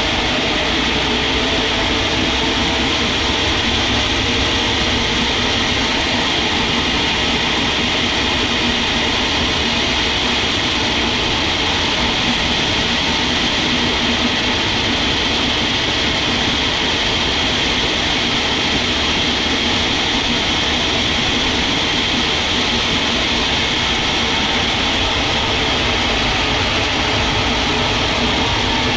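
Steady, unbroken drone of sawmill machinery running.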